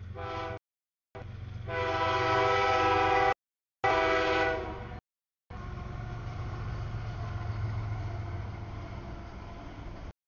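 CSX diesel freight locomotive blowing its air horn in loud chord blasts as it approaches a grade crossing, then the locomotive and train rumbling past from about halfway through. The sound cuts out to dead silence for brief moments several times.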